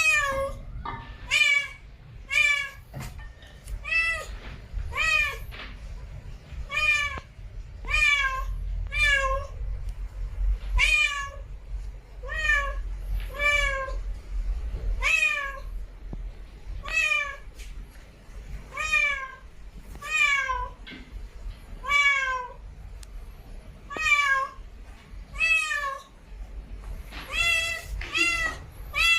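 Cat meowing over and over, short high-pitched meows about one a second, each rising then falling in pitch.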